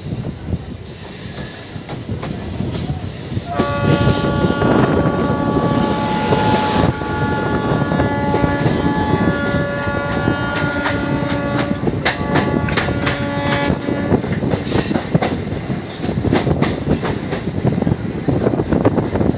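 A passing train's wheels clatter over the rails while an Indian electric locomotive sounds its multi-tone horn. The horn starts about three and a half seconds in and is held for roughly ten seconds, with a couple of brief breaks, before it stops.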